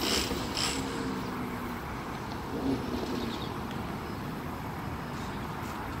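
Distant city traffic: a steady low hum of cars on the street far below.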